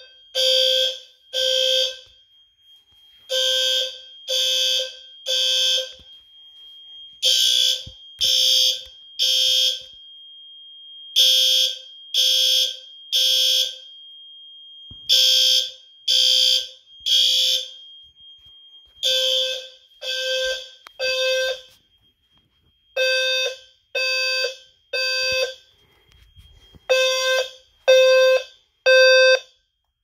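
Fire alarm horn-strobes sounding the temporal-three evacuation signal: groups of three loud, pitched horn blasts about half a second each, with a pause of about a second and a half between groups. Near the end the blasts run on evenly without the pause.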